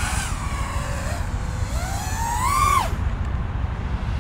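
FPV quadcopter's motors and 5.1-inch DAL Fold F5 folding props whining as it flies close by. The pitch rises over about a second as the throttle is punched, then drops sharply near three seconds in. The folding props sound like ordinary props, with no flutter.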